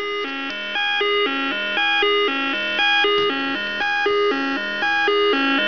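1979 Coleco Zodiac astrological computer playing its built-in electronic tune: a short phrase of quick beeping notes, repeated over and over.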